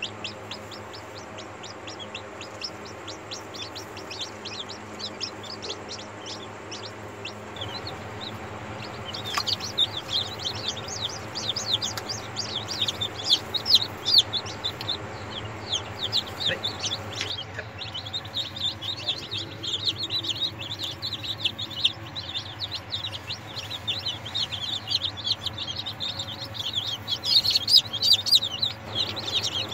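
Newly hatched chicken chicks peeping: many short, high, falling cheeps overlapping, becoming busier and louder about nine seconds in and again past the halfway point. A faint steady low hum runs underneath.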